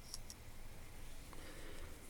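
Faint handling noise of small hand tools: a couple of light clicks just after the start, another tick about two thirds of the way in, and a soft rustle.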